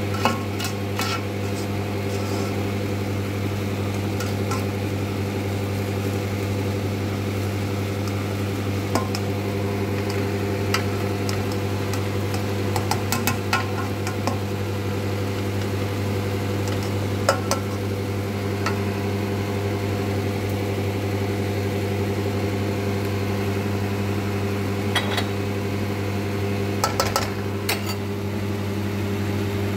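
A steady low motor hum, with scattered light clicks and scrapes of a plastic slotted spatula stirring rice in a nonstick wok, a quick cluster of them near the end.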